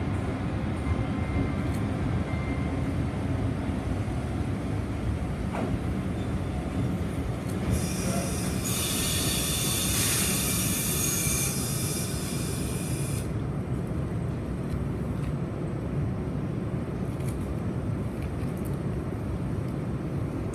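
EF65 electric locomotive hauling a freight train rolls slowly into the platform with a steady low rumble. About eight seconds in it sets up a high squeal for some five seconds as it slows, then the train stands with a steady low hum.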